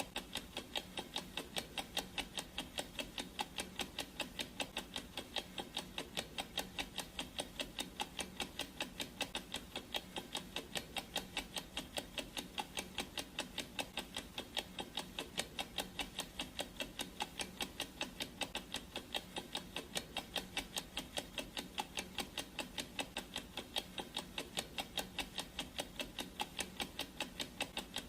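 Ticking clock sound effect: a steady, even run of sharp ticks.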